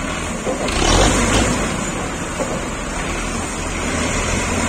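Diesel tractor engine running hard under load, getting louder about a second in, as the tractor strains to pull its trailer out of the mud.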